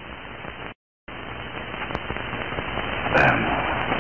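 Steady hiss of an old, worn TV soundtrack with no dialogue. It cuts out to dead silence for a moment just under a second in, then comes back and slowly grows louder, with a short louder sound near the end.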